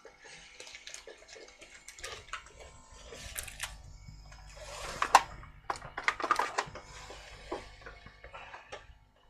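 Small clicks, taps and short scrapes of a small electronic part and tools being handled on a workbench, with the busiest run of clinks and scrapes about five to six and a half seconds in.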